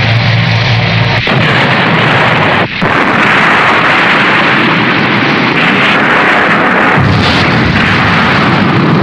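Tokusatsu explosion sound effect: a long, loud, continuous rush of explosive noise. A low hum runs under it for about the first second, then drops out, and there is a brief dip a little under three seconds in.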